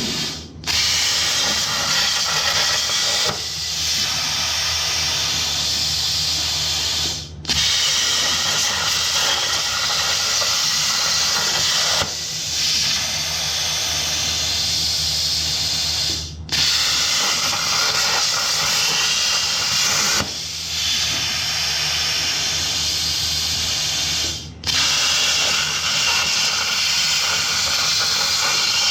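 CNC plasma table's torch cutting steel plate: a steady loud hiss of the plasma arc with a low hum beneath, cutting out briefly and restarting about every eight to nine seconds as the torch finishes one cut and pierces for the next.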